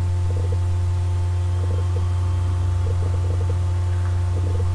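Steady low electrical mains hum from the recording setup, with a few faint soft ticks now and then.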